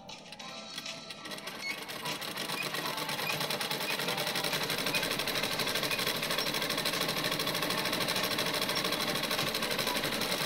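Domestic sewing machine stitching fabric at speed: a fast, even needle rattle that builds up over the first couple of seconds and then runs steadily.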